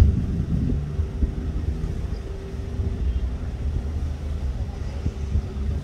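Fast passenger ferry's engines running as it approaches: a steady low rumble with a constant hum.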